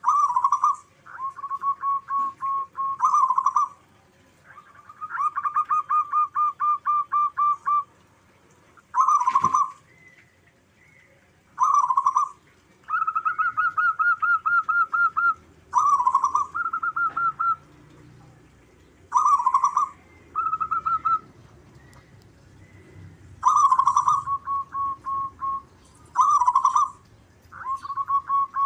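Zebra dove cooing, repeating phrases of rapid staccato coo notes, each phrase a second or two long with short pauses between. There is one sharp click about nine seconds in.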